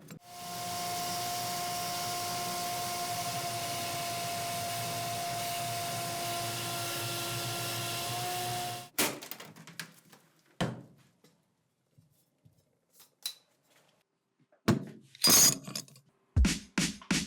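A small motorised tool running at a steady speed for about nine seconds, then cutting off, followed by a few scattered clicks and knocks. Music with a heavy beat comes in near the end.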